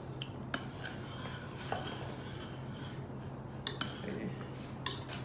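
A metal utensil stirring milk in a stainless steel saucepan, scraping and clinking against the pan about five times, two of the clinks close together. Cornflour slurry is being stirred in to thicken the milk. A steady low hum runs underneath.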